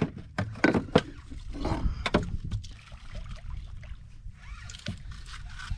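A hooked redfish splashing at the surface while it is played on rod and reel, with a cluster of sharp knocks and clicks in the first two seconds or so.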